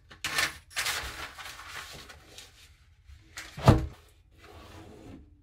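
Rustling and scraping handling noises, then a single loud thud with a short ring about three and a half seconds in.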